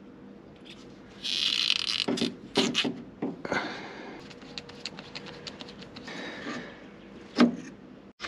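Hands fitting a rubber fuel hose onto a plastic inline fuel filter: rubbing and scraping about a second in, then scattered clicks and small ticks, with one louder knock near the end.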